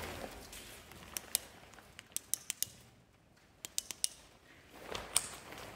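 Footsteps on a gritty concrete floor: sharp, scattered clicks and crunches of grit under the shoes, in small clusters, in an echoing concrete room.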